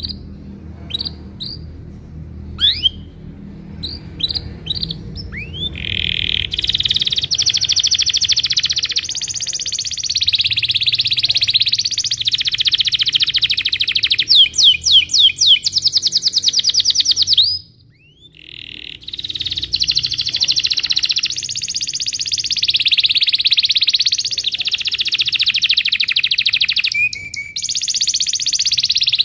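Domestic canary singing. It opens with a few short sharp chirps, then goes into a long unbroken rolling trill. About two-thirds through, a run of rapid chirps and a brief pause interrupt the roll before it starts again.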